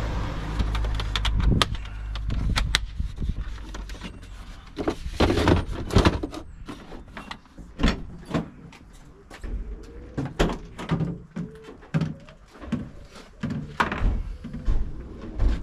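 Van doors and stowed kit being handled: an irregular run of knocks, clunks and clatter, with a few louder thuds.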